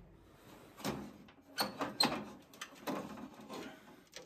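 Loose glass panels being worked out of an antique light fixture's metal frame: several short scrapes and sliding rubs of glass on metal, with a couple of light clinks.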